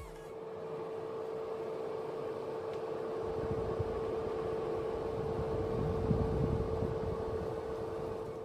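Orpat 2000-watt fan heater running: a steady fan whoosh with a constant hum.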